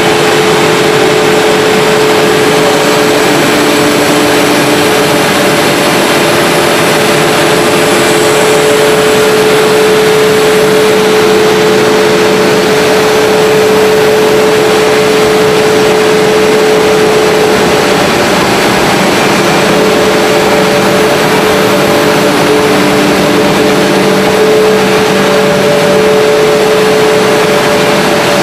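Pumps and electric motors of an HDPE pipe extrusion line running: a loud, steady machine noise with a hum and a couple of steady whining tones, a lower hum joining about nine seconds in.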